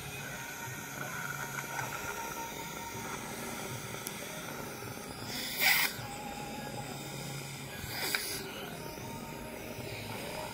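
Steady hum of dental operatory equipment with faint background music, broken by two short hissing bursts, the first and louder about halfway through, the second a couple of seconds later.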